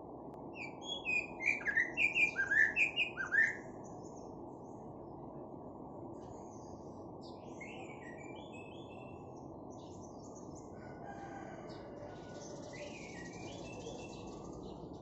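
White-rumped shama singing, its song carrying orange-headed thrush phrases: a loud run of quick, repeated whistled notes in the first few seconds, then quieter scattered phrases over a steady low hiss.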